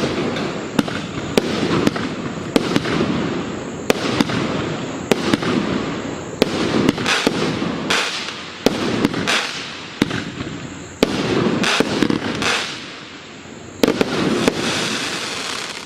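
A 25-shot, 1.2-inch consumer fireworks cake firing shot after shot, about one sharp bang a second over a steady crackle, with a short lull about three-quarters of the way through.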